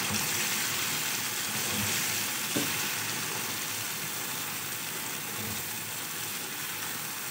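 Boiled black-eyed beans in tomato-onion masala sizzling in a frying pan while a wooden spatula stirs them, a steady hiss with one small knock about two and a half seconds in.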